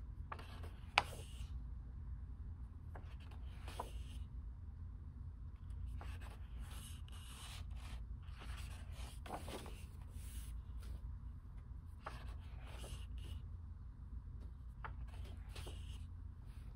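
Pages of a large oversized hardcover book being turned by hand one after another, about every two to three seconds: each turn is a short swish and rub of heavy paper. There is one sharp click about a second in, and a steady low hum underneath.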